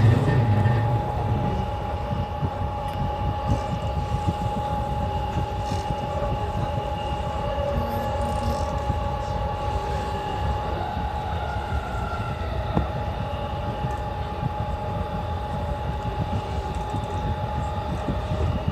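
E235-1000 series electric train running along the line, heard from inside at the front of the train: a steady rumble of wheels on rail with a steady high tone over it. The rumble is louder for the first second or so, then settles.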